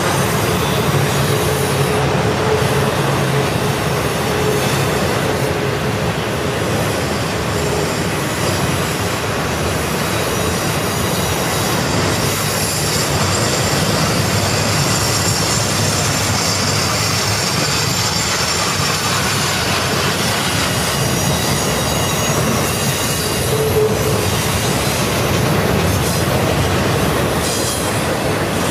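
Model freight train rolling steadily past on its track, a continuous rumble and clatter of the cars' wheels on the rails.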